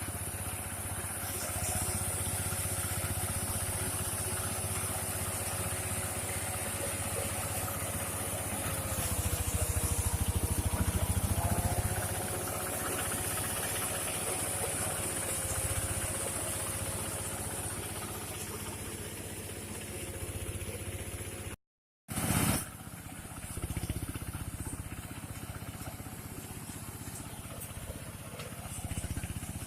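Engine of a rice harvesting machine running steadily with a steady whine. It grows louder for a few seconds about a third of the way in, while the whine dips briefly in pitch. The sound cuts out for a moment about two-thirds of the way through.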